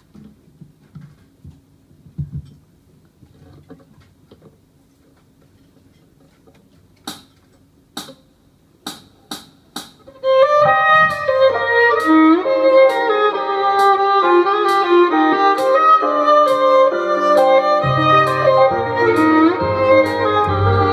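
Quiet room, then a count-in of sharp clicks that quickens. After that a violin and double bass start a pop-style instrumental tune, the violin carrying the melody, with a steady ticking beat under it and the bass notes strongest near the end.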